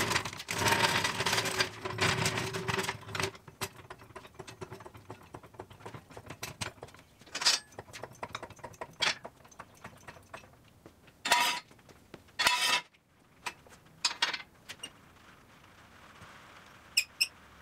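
Loud rustling and scraping for about the first three seconds, then scattered short metal clanks and clicks from handling a steel engine hoist and its long steel handle.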